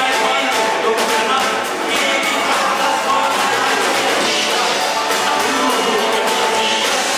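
Live rock and roll band playing, with electric guitar, drums and keyboard under singing voices. The music is loud and steady.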